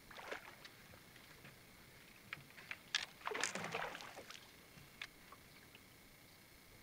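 A small hooked bass splashing at the surface beside the boat, followed by a series of short knocks and rattling as the fish and tackle are handled at the bow, loudest about halfway through.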